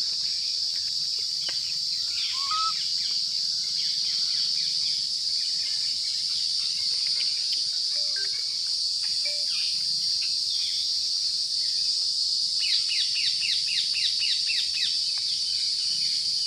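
A steady, high-pitched drone of an insect chorus, with short bird chirps now and then and a quick run of repeated notes about three-quarters of the way through.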